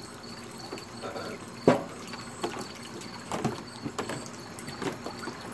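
Metal lid of a barbecue smoker being shut, with one sharp loud clank a little under two seconds in, followed by a few fainter knocks.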